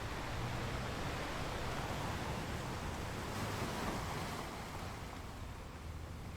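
Ocean surf: waves washing in with a steady rushing hiss that eases off about two-thirds of the way through as the water draws back.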